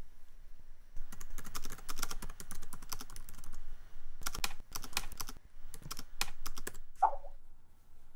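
Fast typing on a laptop's low-profile keyboard, in quick runs of key clicks with short pauses between them. About seven seconds in, a short electronic alert tone sounds.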